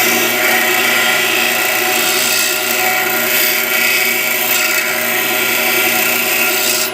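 Pedestal grinder wheel grinding a high-speed steel lathe tool bit: a steady, hissing grind of stone on steel over the motor's hum. The grinding cuts off abruptly near the end.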